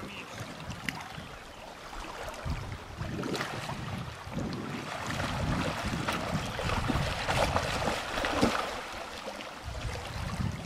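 Wind buffeting the microphone in gusts over the steady rush of river water, with a hooked fish splashing at the surface during the fight.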